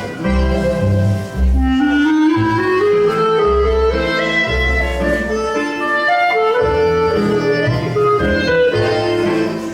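Music for the pas de grâce ballroom dance: a melody climbing in steps over a steady, regular bass line.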